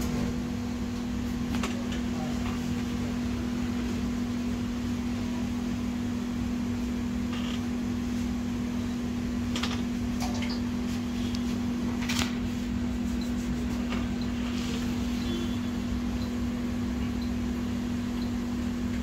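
A steady motor hum holding one low tone, like a fan or blower, with a few light clicks and taps scattered through it.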